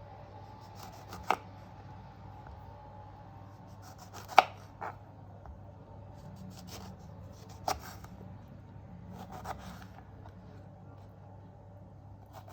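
A knife coming down on a cutting board in a handful of separate sharp knocks, spaced a couple of seconds apart, over a faint steady hum.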